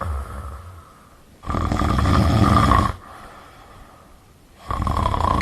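A person snoring: three long snores with quiet pauses between them.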